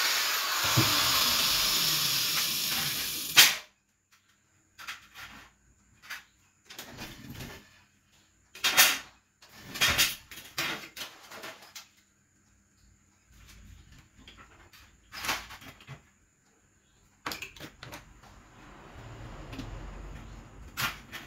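Angle grinder cutting aluminium, a loud dense whir that cuts off suddenly about three and a half seconds in. After it come scattered knocks and clatter of aluminium pieces being handled and fitted into an aluminium frame, the loudest about nine and ten seconds in.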